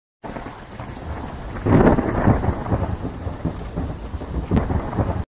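Thunderstorm sound: steady rain with a rolling rumble of thunder that swells loudest about a second and a half in. It cuts off suddenly at the end.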